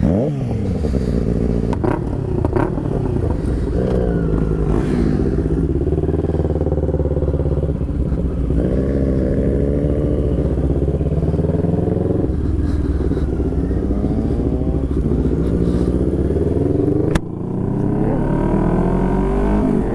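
Motorcycle engine under way, pulling up through the gears: the note climbs and drops back at each of several upshifts. The sound changes abruptly about seventeen seconds in.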